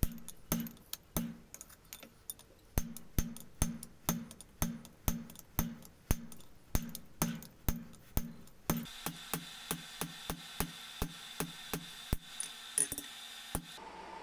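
Hand hammer blows on a fullering tool over hot leaf-spring steel on the anvil, fullering a line for the trowel's spine. The blows fall in a steady rhythm about twice a second and come faster in the last few seconds, each a sharp ringing strike.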